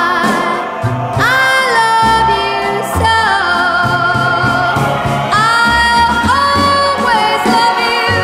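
Background music: a song with a lead vocal holding long notes with vibrato over a steady bass line.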